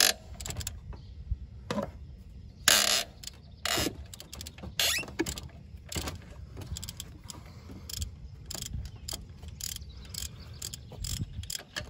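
Hand ratchet loosening the top 15 mm alternator bolt: runs of quick pawl clicks as the handle swings back and forth, in irregular bursts.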